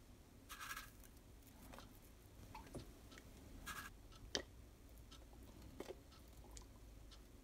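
Dried rosemary shaken from a small plastic container onto raw fish fillets in two short shakes, about three seconds apart, with a few light clicks and taps in between.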